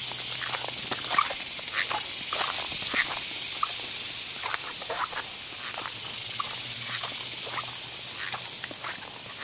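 Footsteps through dry grass and over bare, gravelly ground, with many short, scattered high chirps and rustles over a steady high hiss.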